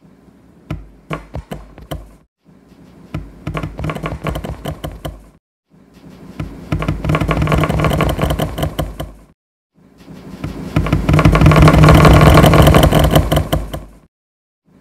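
The same short clip of sharp taps and knocks is played over itself in ever more copies, in four rounds with brief silences between them. It starts as a sparse run of clicks, and each round is denser and louder than the last until it becomes a loud, dense clatter.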